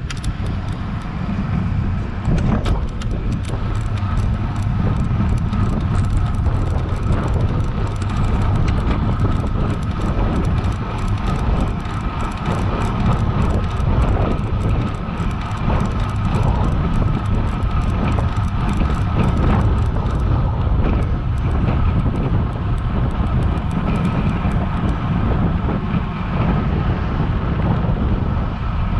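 Wind rushing over the microphone and steady low road rumble from a road bike on a climb, with a stream of light, rapid clicks that thins out after about twenty seconds.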